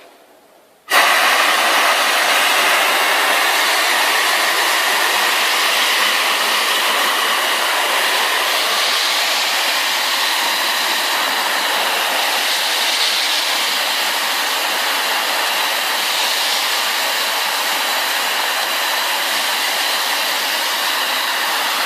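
Compressed-air-powered wet/dry industrial vacuum running with a steady, loud rushing hiss, starting abruptly about a second in.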